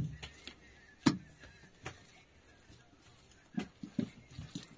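A few sharp knocks, unevenly spaced, the loudest about a second in and two close together near the end: blows of something hard being struck or chopped.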